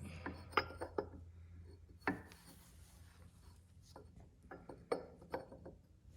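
Scattered light clicks and taps of metal engine parts being handled as the camshaft gear of a Kawasaki FD620D engine is worked into mesh with the crankshaft gear. There is one firmer knock about two seconds in and a quick run of taps near the end, over a steady low hum.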